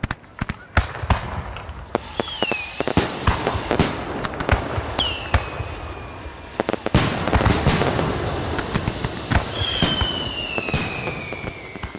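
Fireworks: a steady run of sharp bangs and crackling, with three falling whistles, the last one long, starting about nine and a half seconds in.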